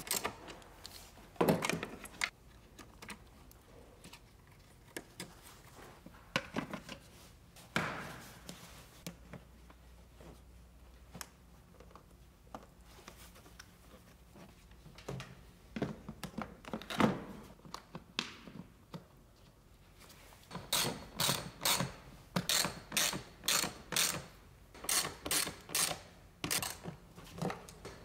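Hand tools on engine-bay parts during reassembly: scattered knocks and clicks, then, from about two-thirds of the way in, a steady run of ratchet wrench clicks at about two a second.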